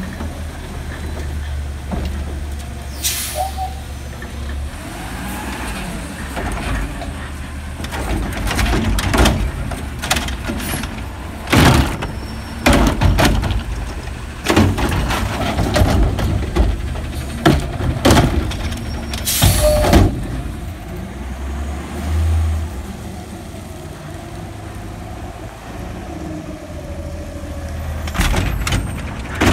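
Automated side-loader garbage truck emptying a wheeled recycling cart: the diesel engine runs steadily while the hydraulic arm lifts and tips the cart, and the cart bangs against the hopper many times as it is shaken out. Sharp air hisses sound twice, and more knocks come near the end as the cart is set down.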